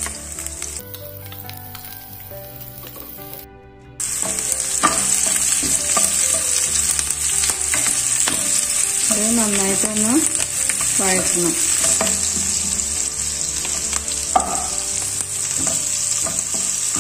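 Chopped onions sizzling in hot vegetable oil in a non-stick pan while a wooden spatula stirs them, with scraping strokes. The sizzle is quieter at first and comes in much louder about four seconds in.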